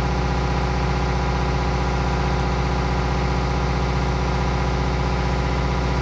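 An engine running steadily at idle, a constant low drone with an unchanging pitch.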